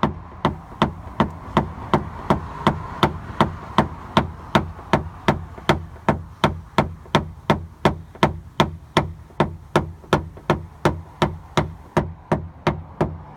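Paintless dent repair tapper knocking down high spots on a truck's door panel: sharp, even metal taps about three a second, taking out the high lines left after the dent was pushed out. A steady low hum of background noise runs underneath.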